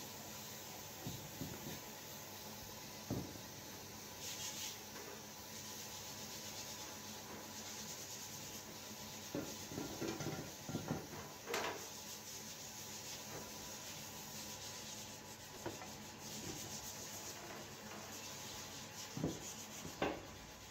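Hand-held paint spray gun hissing in spurts, with a few short knocks from handling in between.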